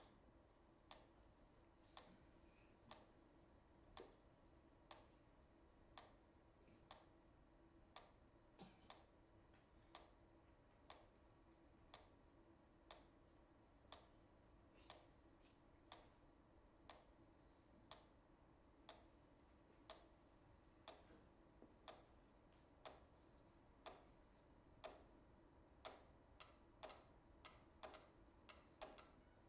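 Quiet ticking of mechanical pyramid metronomes: one steady tick about once a second, with more ticks from other metronomes at different tempos joining out of step near the end.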